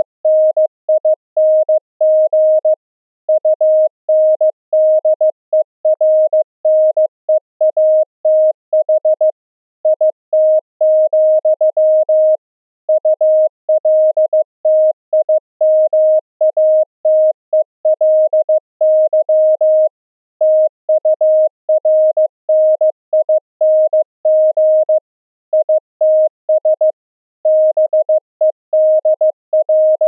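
Morse code CW tone: a single mid-pitched beep keyed on and off in dots and dashes. It is the pulse-density-modulated CW signal received on 64 kHz and down-converted to audio.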